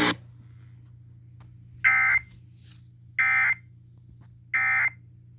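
Emergency Alert System end-of-message signal: three short, identical bursts of data tones (the 'NNNN' digital code), about a second and a bit apart. A faint low hum runs underneath.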